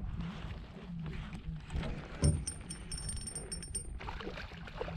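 Steady wind rumble and water noise around a small fishing boat, with one sharp knock about two seconds in.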